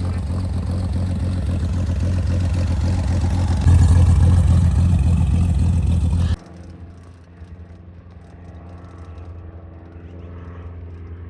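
A motor vehicle's engine running steadily with road noise. It grows louder for a few seconds, then cuts sharply to a quieter, steady engine hum.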